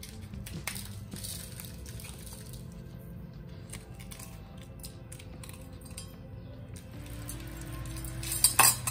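Background music, with light clicks of scissors snipping dried red chillies over a stainless-steel spice grinder cup. Near the end a spoonful of coriander seeds drops into the steel cup with a short, loud rattle.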